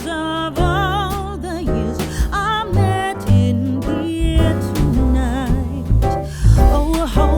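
Background song: a singing voice with vibrato over bass and instruments.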